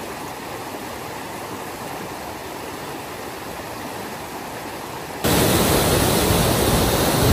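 Steady rushing noise with no clear tone or rhythm, jumping abruptly louder about five seconds in.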